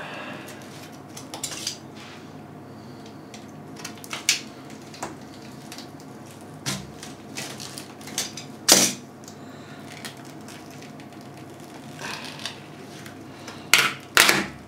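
Scattered clicks, crackles and knocks of a cured epoxy resin panel being pried and peeled out of its mold and handled, with a sharper knock about nine seconds in and a quick cluster near the end.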